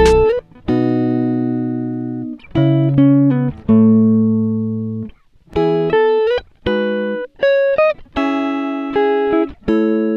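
Background music: plucked guitar chords and single notes, each struck and left to ring out and fade.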